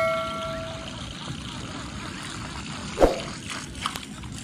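A bell-like 'ding' sound effect fading out over the first second, over a steady hiss of wind and water. About three seconds in, a single short thump.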